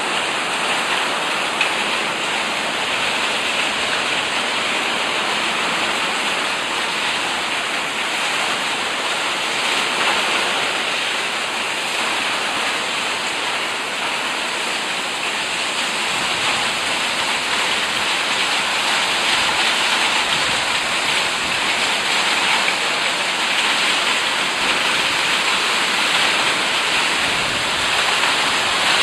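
Hail and heavy rain falling steadily: a dense, unbroken hiss of many small impacts on surfaces.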